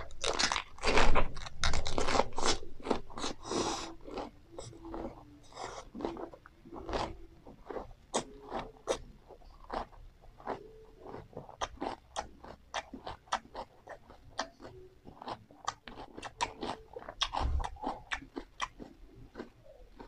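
Close-miked chewing of a wrap of fresh cabbage, cucumber, herbs and rice noodles. A bite and loud crunching come in the first few seconds, then steady, quieter crisp chewing with the mouth closed.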